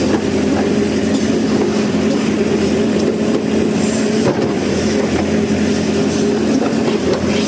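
Hyundai 140 excavator's diesel engine running steadily as the machine levels mud, with a steady hum and a few faint clanks.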